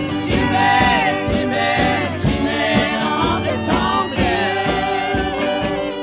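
Country-style acoustic recording: a bowed fiddle sliding between notes, with singing.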